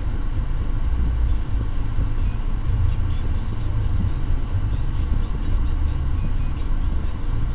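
Steady low rumble inside a car's cabin from its engine idling while the car stands in a traffic queue.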